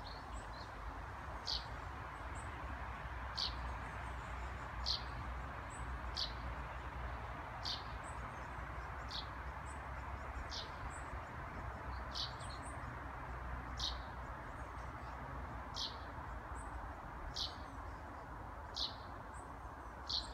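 Eurasian tree sparrow calling: one short, sharp, high call repeated about every one and a half seconds, over a steady background rush.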